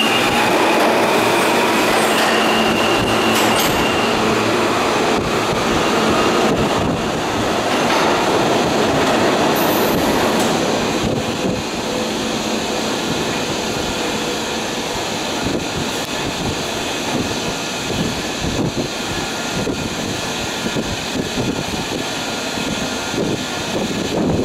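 R160 subway train pulling out of the station, its wheels running and clattering over the rails, with a brief high wheel squeal about two seconds in. The sound is loudest for the first ten seconds or so, then drops to a lower, rattling run as the train draws away.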